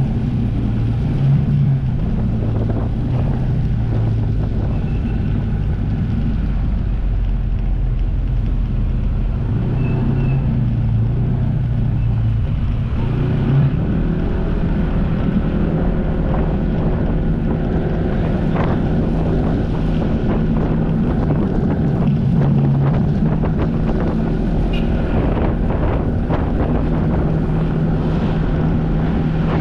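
Jet ski engine running steadily under way, its low hum changing pitch about halfway through, with wind buffeting the microphone.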